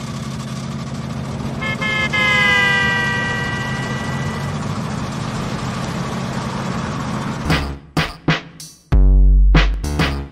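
Car traffic sound effect: a steady engine and road hum, with a car horn honking about two seconds in, its pitch sliding slowly down as it passes. About seven and a half seconds in, a drum-machine beat with deep bass takes over.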